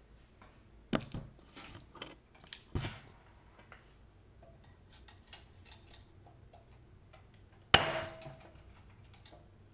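Hammer tapping a screwdriver against the governor's retaining ring inside a Honda-clone engine crankcase, pounding the ring loose. Two sharp knocks with some tool clinking in the first three seconds, then one loud, ringing metal strike near the end.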